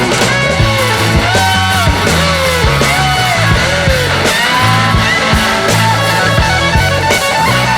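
Rock music: a melody line with sliding, bending notes over held bass notes and a steady drum beat.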